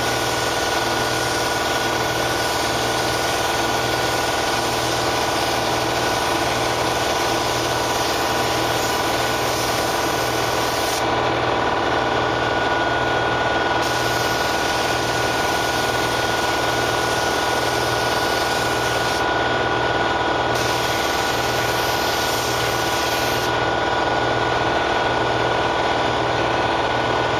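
Air compressor running steadily under the hiss of an HVLP spray gun laying down clear coat; the hiss stops for a few seconds now and then as the gun trigger is released.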